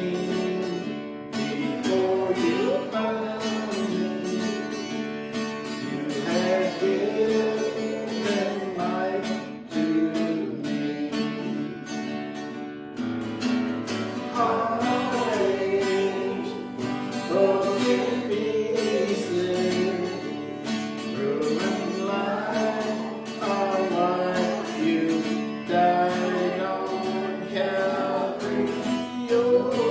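Live worship music: a hymn sung with instrumental accompaniment.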